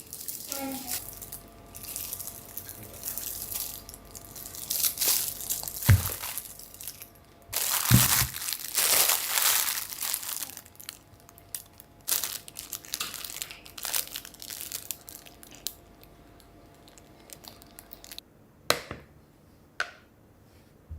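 Plastic bags and packaging crinkling and rustling as produce is unpacked and handled, with two soft thumps of items set down about a third of the way in, then a few light clicks and taps near the end.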